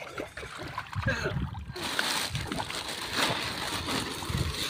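Water sloshing and splashing, joined about two seconds in by a steady rushing noise.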